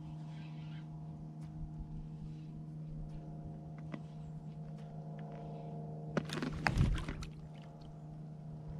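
A steady low hum with faint scattered clicks, broken about six seconds in by a short, loud burst of water splashing around a float tube.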